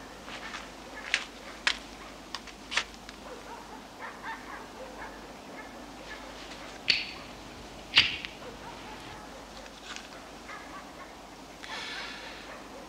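A few small sharp clicks and faint handling noises, with the sharpest click about eight seconds in and a short breathy hiss near the end.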